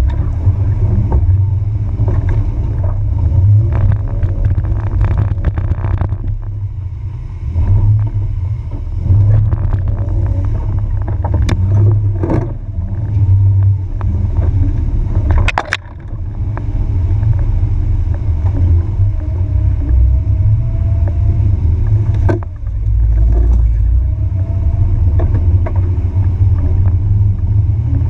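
Jeep Wrangler TJ running at low speed through mud on a rough trail, a heavy low rumble heard from the bonnet. A few sharp knocks come through around the middle as the Jeep goes over bumps.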